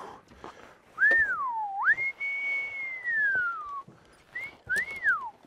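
A person whistling a single clear tone: a quick rise and dip, then a long high note that slowly falls, and two short up-and-down whistles near the end.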